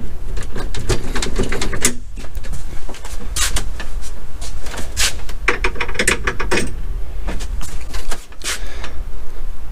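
Metal clanks, knocks and rattles from handling the removable crank handle of a pop-up camper's roof-lift mechanism, with a steady low rumble underneath.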